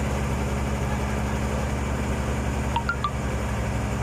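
Diesel engine of heavy farm or construction machinery idling steadily, with a quick group of short high chirps about three seconds in.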